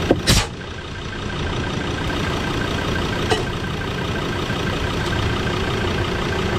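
Portable air compressor running steadily with an even mechanical drone, pumping a vehicle tyre back up to 27 PSI. Two sharp knocks come right at the start.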